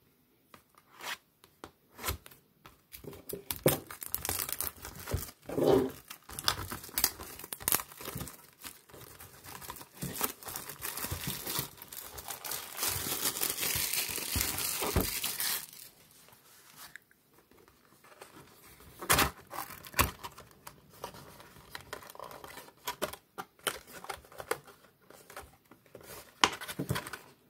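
Plastic shrink wrap being torn and crinkled off a cardboard trading-card box, with a long stretch of steady tearing and crackling about halfway through. Scattered crinkles and clicks follow as the box is handled and its top lifted open.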